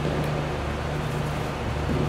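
Steady low hum and room noise of a large indoor hall.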